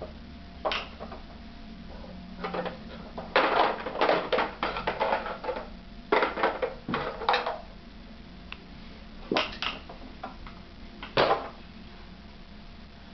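Plastic toys rattling and knocking against each other and the wooden sides of a Radio Flyer walker wagon as a toddler handles it and pulls toys out. The clatter comes in irregular bursts, busiest about four to five seconds in and again around seven seconds, with single knocks between.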